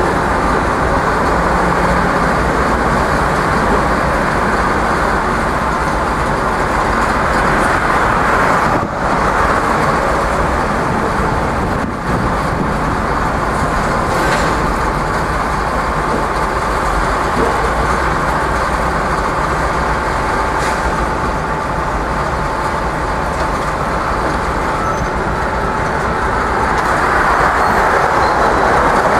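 Heavy diesel equipment running steadily at a rail site.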